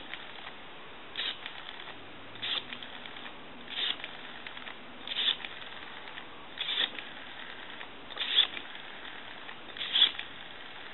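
Rotary dial of a Takara French-style desk telephone being pulled round and let go, digit after digit, about eight short bursts of clicking roughly a second and a half apart. The dial has been freshly cleaned, oiled and its points adjusted, and it returns smoothly.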